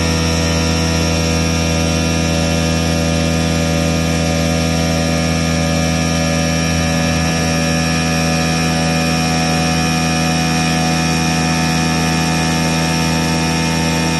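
CNC machine spindle running steadily as its tool cuts a circular cutout in a flat sheet under water coolant jets: a constant mechanical whine with many held tones over an even hiss.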